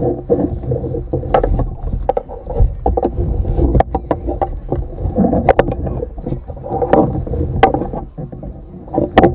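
River water sloshing and splashing right against a camera held at the waterline, with irregular sharp splashes and knocks over a steady low slosh.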